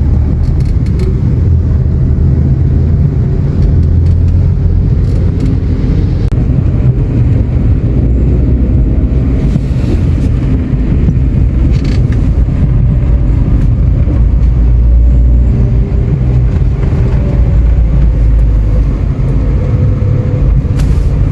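Motor vehicle on the move: a steady, loud low rumble of engine and road noise, with faint engine tones over it.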